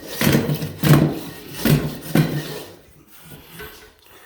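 Razor-blade floor scraper striking and scraping along wooden floorboards, knocking carpet staples out of the wood. Four sharp strokes come in quick succession, then the scraping goes quieter for the last second or so.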